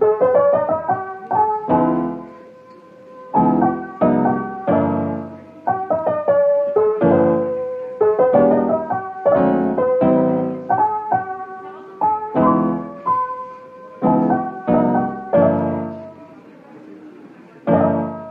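Background piano music: a slow run of single notes and chords, each struck and fading away, with short pauses between phrases.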